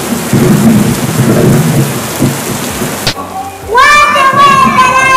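Thunderstorm sound: heavy rain hiss with low rumbling thunder, which cuts off suddenly about three seconds in. A child's voice follows and is the loudest thing near the end.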